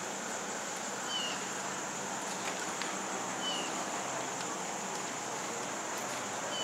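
Steady outdoor background hiss with a constant high-pitched whine, and a short falling chirp three times, about every two and a half seconds.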